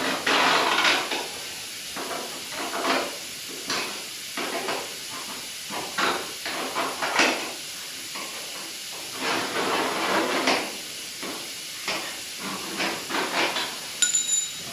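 A metal scribe scratching along sheet steel in repeated short strokes, marking out the outline of a patch panel on a fender. Near the end there is a short metallic ping.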